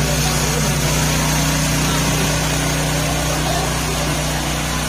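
A small engine running steadily: a constant low hum that holds its pitch throughout.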